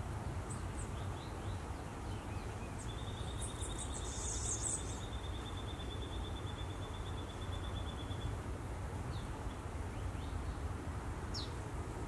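Steady low background rumble under a fast, even, high-pitched trill that starts about three seconds in and holds for about five seconds, with a few short high chirps from small birds scattered through.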